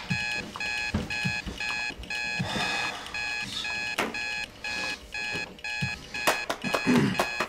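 Electronic alarm clock beeping in quick repeating bursts, about two a second, going on unanswered. Under it come soft thumps and rustling of bedding and a few knocks as a man gets up out of bed.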